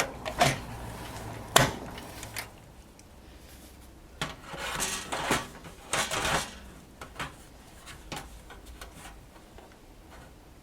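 Hard plastic and metal clicks and knocks of PC parts being handled as a graphics card is fitted into a desktop case, with a few seconds of rustling in the middle and a few lighter clicks after.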